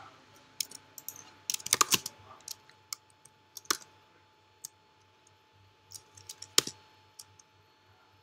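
Typing on a computer keyboard: scattered keystrokes, a quick run of them about two seconds in and another small cluster near six and a half seconds, thinning out near the end, over a faint steady hum.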